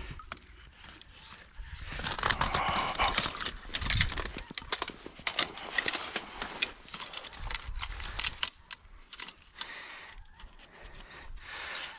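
Steel trap-setter handles and the springs and chain of a 330 body-grip trap clinking and rattling in a steady scatter of short metallic clicks as the trap is compressed to free a beaver.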